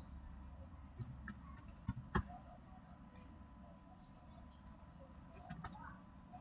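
Faint, scattered computer keyboard keystrokes and mouse clicks. The sharpest click comes a little over two seconds in, and a quick run of clicks comes near the end.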